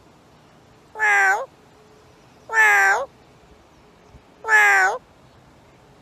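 Three drawn-out meow calls, each about half a second long and ending with a slight upward turn in pitch, spaced about two seconds apart.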